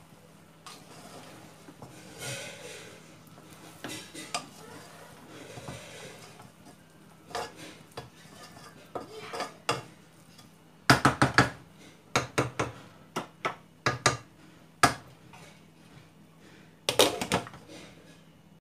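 A spoon stirring and scraping through cooked rice in a wide cooking pan. About eleven seconds in come a quick run of sharp clinks and knocks of the spoon against the pan, and near the end a short clatter as a glass lid is set on the pan.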